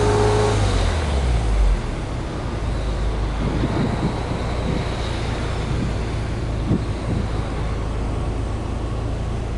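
Subaru Legacy B4 2.0GT spec.B's turbocharged EJ20 flat-four heard at the exhaust: the revs from a free-rev fall back in the first couple of seconds, then it settles into a steady low idle rumble.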